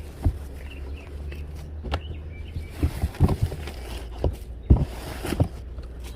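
Shoes and other items being handled and dropped while rummaging through a storage bin: scattered sharp knocks and rustling, busiest about three and five seconds in, over a steady low rumble.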